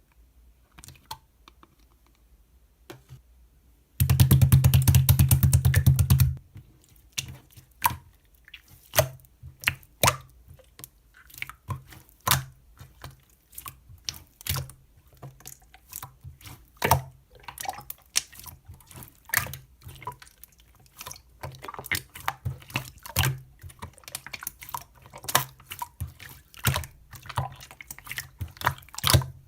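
Purple slime being squeezed and poked, giving irregular wet clicks and pops. About four seconds in, a louder two-second run of rapid crackling clicks.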